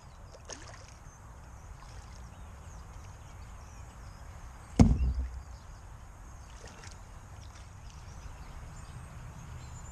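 Steady low outdoor rumble of wind on the microphone, broken by one sharp knock about halfway through.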